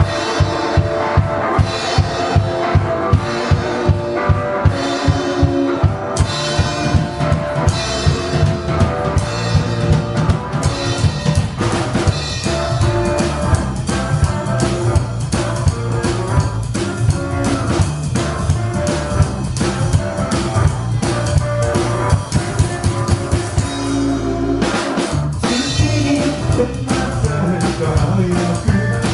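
Rockabilly band playing live: a steady drum beat alone to open, then bass and electric guitar join about six seconds in, with a short break about 24 seconds in before the full band comes back.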